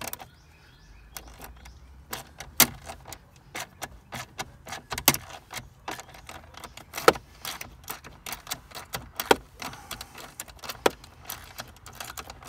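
Socket ratchet on a long extension clicking in short back-and-forth strokes while it loosens a 13 mm grab-handle mounting bolt, with sharper metallic clicks and knocks among them. The clicks are irregular, with a louder one every couple of seconds.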